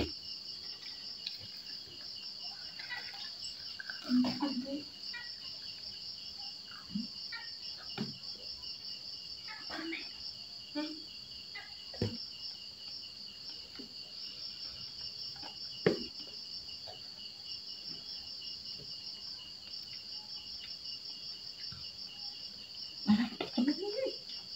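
Insects trilling steadily, a fast pulsing chirr at two high pitches. A few short knocks and brief low vocal sounds come over it now and then.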